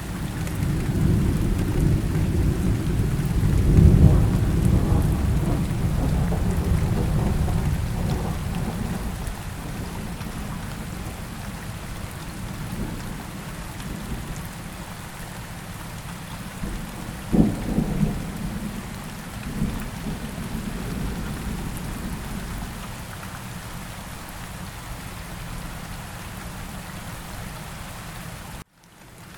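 Steady rain with thunder: a long low rumble swells in the first few seconds and slowly fades, and a sharper thunderclap comes about 17 seconds in. The sound drops out briefly near the end.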